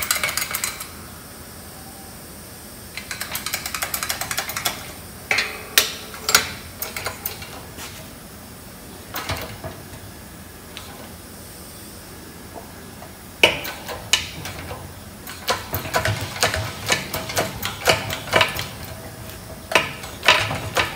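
Hydraulic shop press being worked to force a rusted-in mounting bolt out of a propeller hub: scattered metallic clicks and clanks, quiet in the middle, with one sharp knock just past halfway and a denser run of clicks toward the end.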